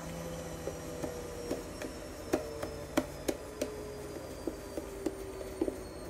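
Homemade white glue-and-foam slime being kneaded and squeezed between the hands, giving short sticky clicks and pops about two or three times a second. The slime is still slightly sticky on the hands.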